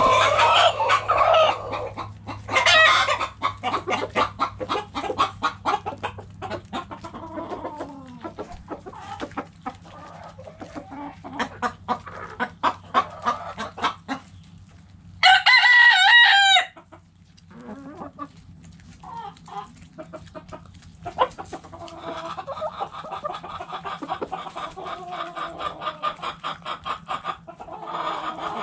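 A flock of hens clucking in a chicken coop, many short calls overlapping, with a rooster crowing loudly once about fifteen seconds in.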